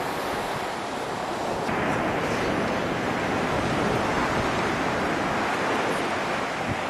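Ocean surf washing on a beach, a steady rush of noise that swells about two seconds in.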